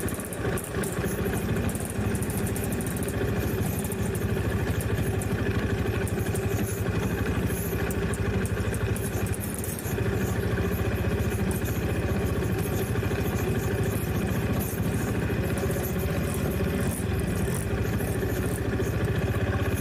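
Off-road trail motorcycle engine running steadily, easing off briefly near the start and again about halfway through.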